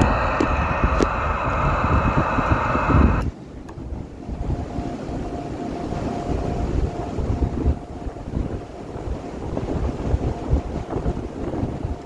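Strong gusty wind buffeting the microphone with a heavy low rumble. Over the first three seconds a hissy, whistling band of tone rides on top and cuts off suddenly. After that a faint steady high tone comes and goes.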